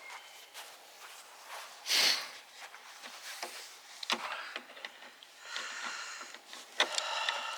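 A loud sniff about two seconds in, then small clicks and a rasping scrape of cold, stiff plastic and metal parts as pliers squeeze a door handle linkage clip into place.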